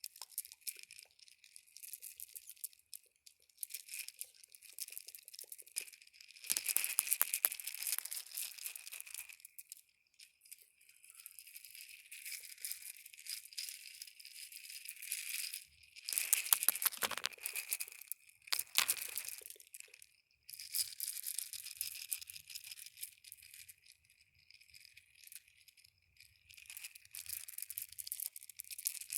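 Close-miked crunchy, crinkling trigger sounds: bursts of fine crackling lasting a few seconds each, with quieter stretches between.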